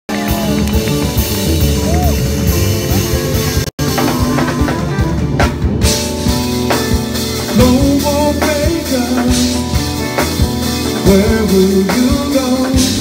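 Live band music: an electric bass, drum kit and keyboards playing together, with a gliding melody line coming in about halfway. The sound cuts out for an instant a little under four seconds in.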